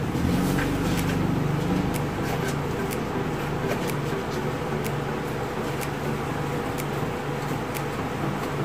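A steady low mechanical hum, with faint scattered clicks over it.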